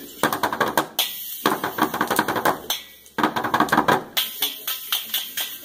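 Kid Connection toy drum kit being beaten in rapid, uneven flurries of strikes, with short pauses between the flurries.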